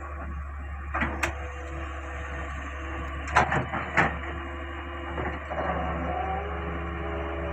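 Caterpillar 385C hydraulic excavator running with a steady low engine drone. A few sharp knocks come about a second in and again around three and four seconds in.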